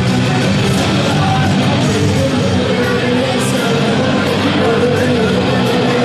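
Loud rock music with electric guitar, played over an arena's sound system.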